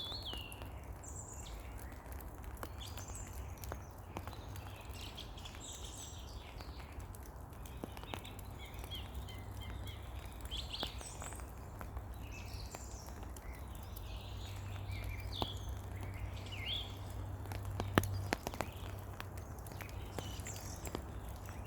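Light rain pattering and dripping in a spring forest, with scattered single drop ticks and one sharper tap about 18 seconds in, while songbirds chirp and call throughout over a low steady rumble.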